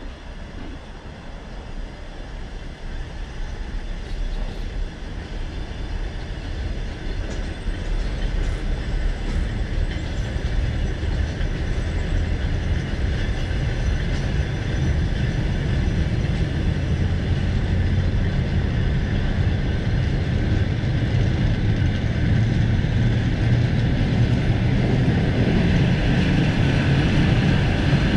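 Passenger train pulling away from a stop and gathering speed, heard from inside a coach: a rolling rumble that grows steadily louder.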